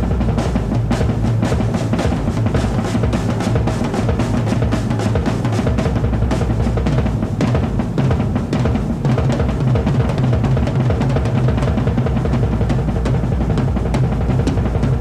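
Rock drum kit played in a live solo: a fast, dense stream of strokes on snare and toms over a continuous low bass-drum pulse, with cymbals ringing.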